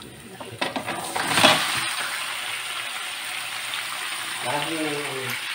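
Pieces of fish going into a hot pan, with a burst of sizzling about a second in that settles into a steady frying hiss.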